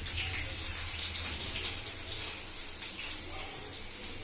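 Chopped onion sizzling as it is tipped into a hot clay pot on a gas flame: a steady hiss.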